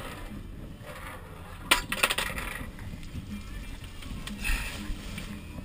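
A single sharp clink with a short metallic ringing about two seconds in. Later comes a brief hiss of water from a deck washdown hose spraying the deck.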